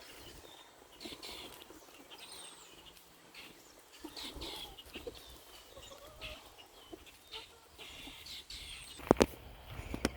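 Birds calling: many short high chirps and a couple of whistled glides, with lower clucking calls of chickens among them. About 9 s in come two sharp knocks, the loudest sounds here.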